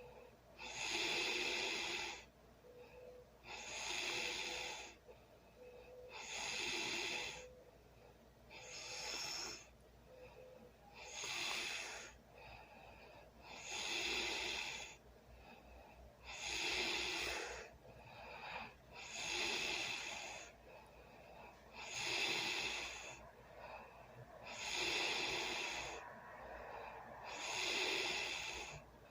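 A sleeping person snoring, one loud noisy breath about every two and a half to three seconds, with fainter breathing between.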